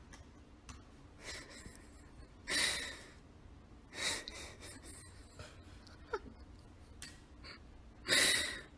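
A person breathing close to the microphone: a few slow, airy breaths a second or more apart, the loudest near the end.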